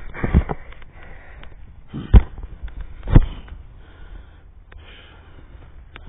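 Yellow Labrador retriever sniffing and snorting close to the microphone, with three short, loud snorts, the last two about a second apart.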